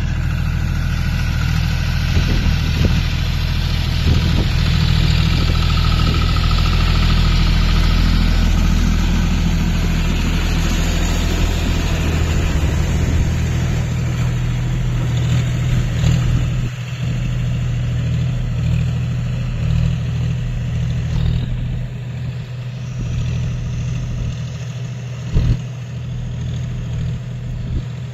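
John Deere four-wheel-drive tractor's diesel engine running steadily while it pulls a rotavator through wet, puddled soil. The engine is loudest as the tractor passes close about halfway through, then grows fainter as it moves away, with one brief thump near the end.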